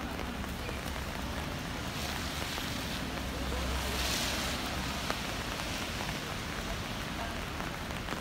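Steady rain on a wet city street. Around the middle, a car passes on the wet road: its tyre hiss swells and fades, with a low rumble.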